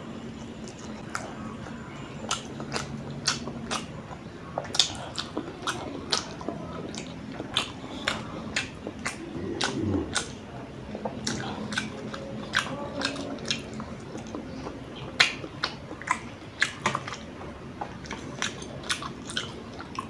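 Close-miked chewing and wet mouth smacking of someone eating instant noodles, a rapid irregular run of sharp clicks.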